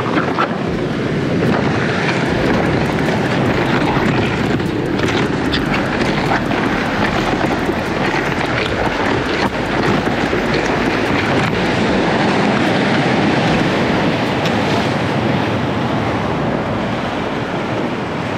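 Steady rushing noise of wind buffeting a body-worn camera's microphone, mixed with surf washing over shoreline rocks, with a few light clicks along the way.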